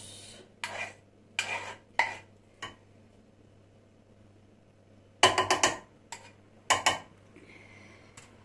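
Kitchen utensils and dishes knocking and clinking against a cooking pot: a few scattered knocks in the first three seconds, then a quick run of clinks about five seconds in and two more near seven seconds.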